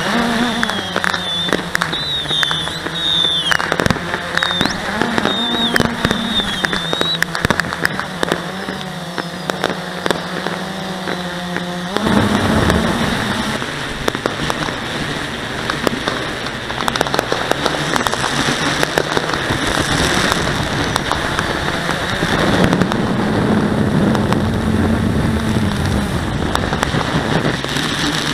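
Blade 350QX quadcopter's motors and propellers humming from on board, the pitch shifting as it manoeuvres, with many firework pops and crackles. About halfway through, a rushing noise swells up over the hum.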